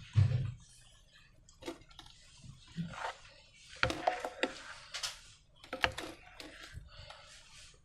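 Sticky slime being squeezed and handled, giving irregular wet clicks and squelches, with a low thump right at the start.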